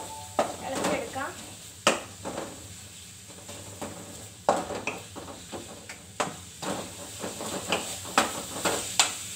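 Wooden spatula stirring chopped onions in hot oil in a metal kadai, with irregular clacks and scrapes against the pan over a steady sizzle of the onions frying.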